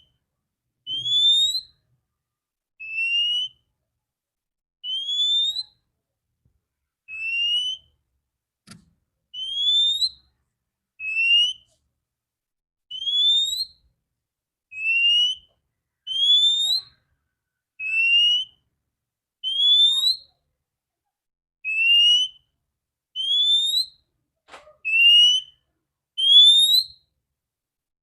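Female oriental magpie-robin (kacer) calling in clear whistles. A rising upslurred note alternates with a shorter, slightly lower note, about one every one and a half to two seconds. This is the female call used to stir male magpie-robins into song.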